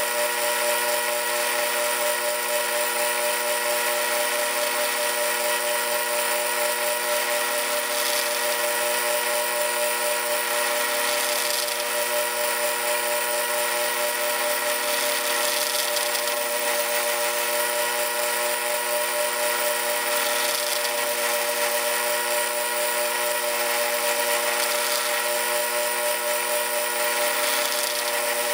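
South Bend Model A lathe running under power with a constant, steady whine from its motor and drive while the cutting tool feeds in to turn a taper on a steel nut, with a brief scrape of cutting every few seconds.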